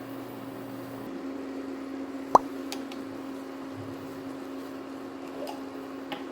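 A steady electric hum, with one sharp plop about two and a half seconds in and a few faint clicks afterwards.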